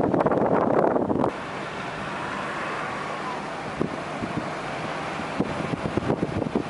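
Car driving around a roundabout: road and engine noise with wind buffeting the microphone. The buffeting is loudest for about the first second, then settles into a steady rush with scattered crackles near the end.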